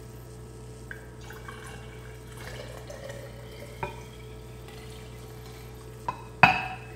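Liquid dye stock poured from a large glass beaker into a glass jar, trickling faintly, with a few small clicks and one loud knock near the end.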